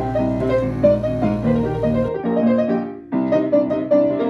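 Background music: a solo piano arrangement of a eurobeat song, played as a quick run of notes, with a low hum beneath that stops about two seconds in. The playing briefly drops out about three seconds in, then goes on.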